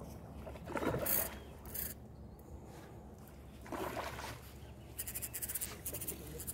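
Large curimba thrashing at the surface of the river as it is brought to a landing net: several splashes, a strong one about a second in, another around four seconds, and a quick run of smaller ones near the end.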